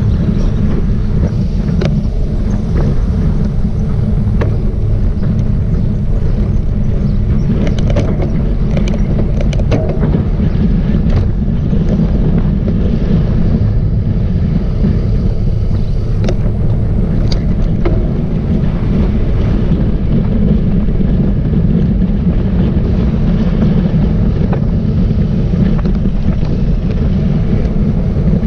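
Strong wind buffeting the microphone of a camera on a moving road bike: a loud, steady low rumble, with scattered small clicks and knocks from the ride.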